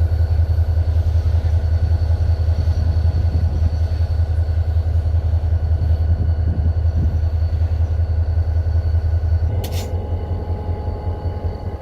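A vehicle engine running steadily with a heavy, pulsing low rumble and faint steady whines above it. A short sharp click comes near the end, after which the running sound shifts and eases slightly.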